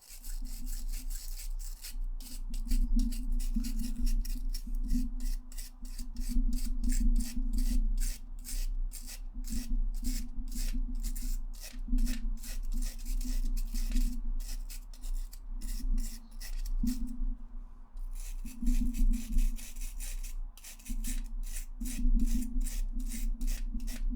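A brush scrubbing grime off a PS4 DualShock 4 controller's plastic shell, in quick back-and-forth strokes several times a second, with a short pause about two-thirds of the way through.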